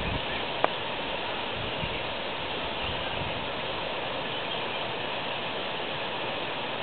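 Steady outdoor background hiss with no clear source, broken by one short sharp click about half a second in.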